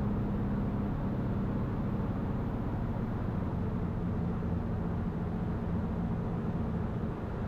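Cockpit noise of a Cirrus SR22T on final approach: its turbocharged six-cylinder engine running at low power under a steady rush of airflow, an even drone with a low hum.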